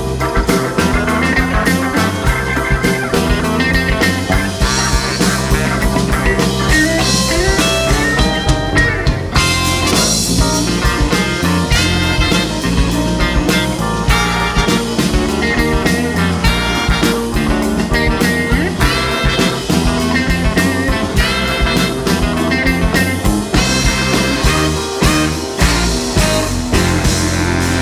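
Live funk band playing: electric guitars, bass, drum kit, saxophones and trumpet over a Hammond-style organ, with a steady groove.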